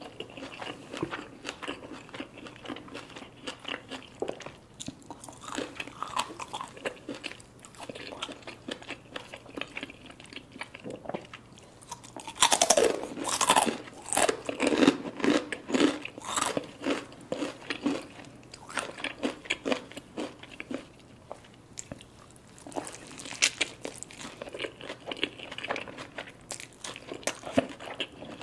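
Close-miked chewing, soft and wet, with a stretch of loud, dense crunching about halfway through.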